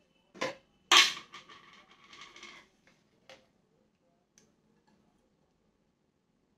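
A few sharp clicks and knocks of kitchen handling at a gas stove, the loudest about a second in with a short rattle after it, then one more click a couple of seconds later.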